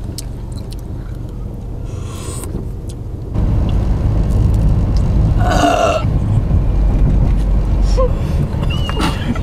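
Low rumble of a moving car heard from inside the cabin, stepping up louder a little over three seconds in. A brief hissy burst comes about two seconds in and a short vocal sound near the middle.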